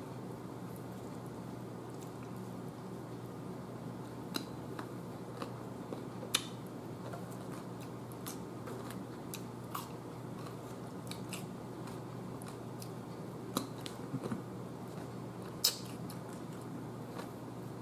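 Close-up eating of sliced cucumber and red onion: chewing and crisp crunching with short sharp clicks here and there, the loudest about six seconds in and near the end, over a steady low hum.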